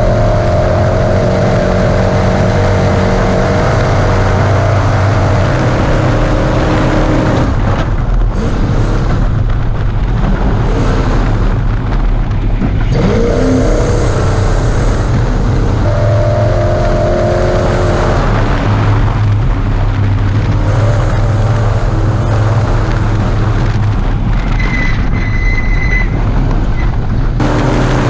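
Class 1450 Ford Ranger desert race truck's engine running hard under changing throttle, over a steady heavy low rumble. The engine note falls away twice, about eight and nineteen seconds in, then picks up again.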